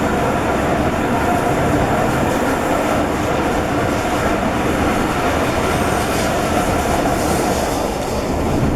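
Steam-hauled passenger coach running along the track, heard from inside as a steady, even rumble of wheels on rails.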